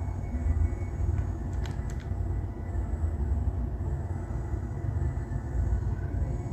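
Steady low background rumble, with a few faint clicks a little under two seconds in.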